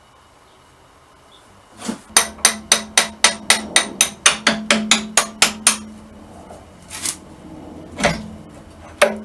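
Hammer blows on steel while freeing the excavator's hydraulic cylinder: a quick run of about fifteen ringing strikes at roughly four a second, then three single blows about a second apart.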